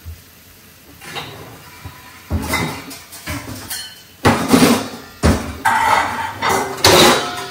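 Metal pots and pans clanging: a few loud knocks with brief ringing, starting about two seconds in, as a pot of cooked linguine is handled for draining.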